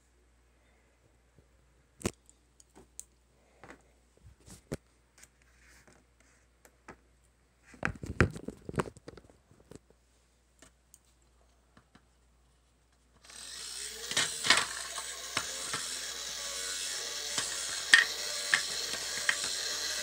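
Scattered clicks and knocks of plastic parts being handled, then about two-thirds of the way in the small electric motor and plastic gearbox of a Tamiya row boat kit start up and run steadily, with rapid clicking from the rowing mechanism.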